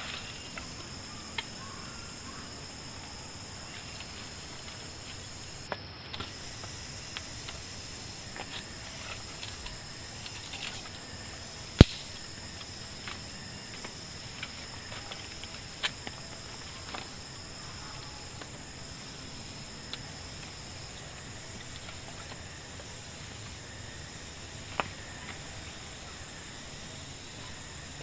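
Forest ambience: a steady, high-pitched insect drone, with scattered light clicks and one sharp knock about twelve seconds in.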